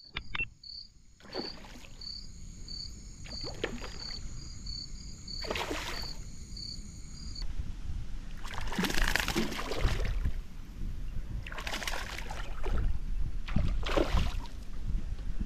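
Outdoor rumble with a run of short splashy knocks about every two seconds, such as a boat on water makes. Through the first half a faint high-pitched chirping pulses about three times a second, and then stops.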